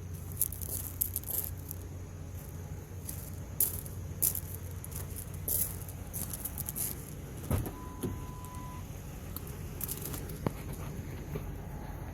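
Ford F-150 V8 or V6 pickup engine idling with a steady low drone, on a truck sold as running with a misfire. Light clicks and rattles come and go over it, and about two-thirds of the way in a knock is followed by a short steady beep.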